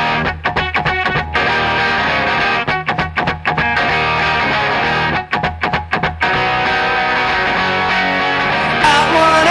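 Rock music with distorted electric guitar, playing steadily with short rhythmic breaks; it turns brighter and louder near the end.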